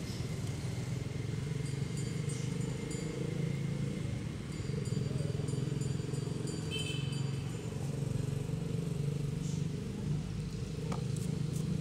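A motor engine running steadily, a low even hum.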